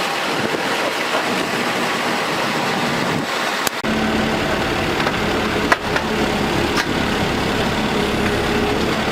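Excavator's diesel engine running steadily, with a few sharp knocks in the second half.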